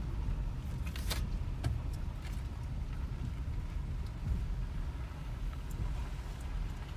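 Car cabin noise while driving slowly on a rough unpaved road: steady low engine and road rumble, with a few short rattling clicks about one to two and a half seconds in.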